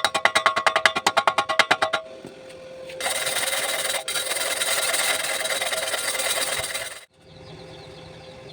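Welding arc: a rapid pulsing buzz for about two seconds, then after a short pause a loud steady hiss for about four seconds that cuts off suddenly.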